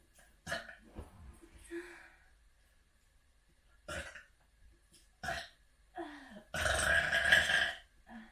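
A person burping: a few short burps, then one long, loud burp lasting over a second near the end.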